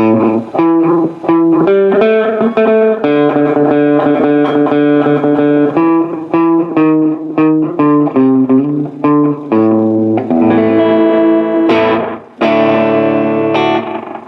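Electric guitar played through a Memphis Echo ME-8 tape echo, a tape delay built around an 8-track cartridge. It plays picked single notes and short phrases, then changes about ten seconds in to fuller strummed chords that ring on.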